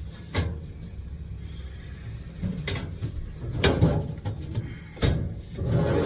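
A few separate knocks and clunks over a low steady rumble, then scraping and rubbing near the end: sheet-metal ductwork being handled and pushed into place.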